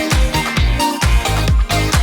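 Upbeat electronic dance music with a steady four-on-the-floor beat.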